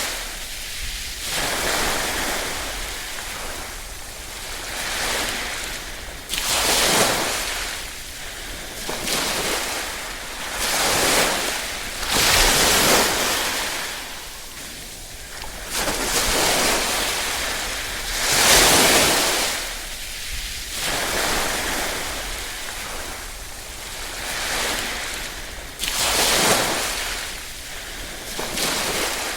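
Small waves lapping on a shore, each wash swelling to a hiss and falling back, one every few seconds.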